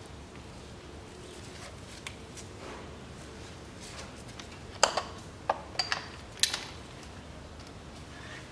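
A handful of sharp metal clicks and clinks from hand tools: a spark plug socket on an extension and a ratchet handle being fitted together in the plug well. The clicks come bunched together about halfway through.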